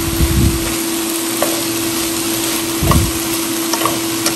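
Julienned jicama and carrot sizzling as they stir-fry in a pan, turned with wooden chopsticks: a few light clicks of the chopsticks against the pan and soft thuds near the start and about three seconds in, over a steady hum.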